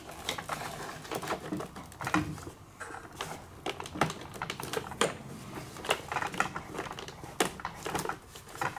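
Foam wing of an RC model airplane being slid onto its spar and pressed into place on the fuselage: a run of irregular light clicks, taps and rubbing from foam and plastic parts.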